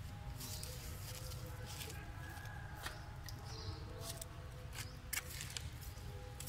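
Outdoor ambience: a low steady rumble with faint thin background tones and scattered soft clicks and rustles at irregular moments.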